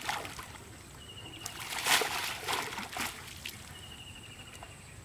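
Water splashing and trickling as a cast net loaded with fish is lifted and gathered in shallow water, with the loudest splash about two seconds in and quieter dripping near the end.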